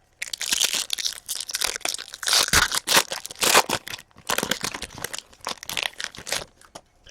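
Foil trading-card pack being torn open and its wrapper crinkled, a run of irregular crackling rustles that stops shortly before the end.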